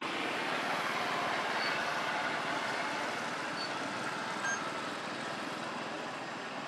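Steady outdoor background rush, like wind or distant traffic, with a few faint, short high tones; no monkey calls are heard.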